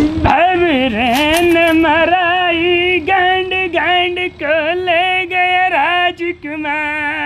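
A man singing solo and unaccompanied, a beggar's sung plea for alms: long held notes with a wavering tremble and sliding ornaments, in a few phrases broken by short breaks.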